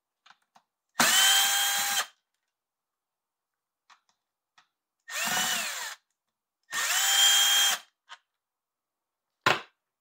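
Cordless drill-driver spinning out the screws of a chainsaw's side cover in three runs of about a second each, with a steady motor whine. On the second run the pitch rises and then falls. A short sharp knock near the end.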